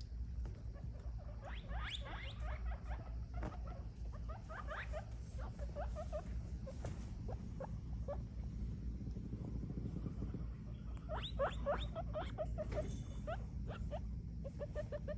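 Guinea pig making runs of short, squeaky rising calls in clusters, with a steady low hum underneath.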